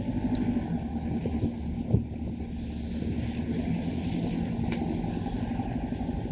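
Mitsubishi L200 pickup's engine running steadily while driving off-road, with a single sharp knock about two seconds in.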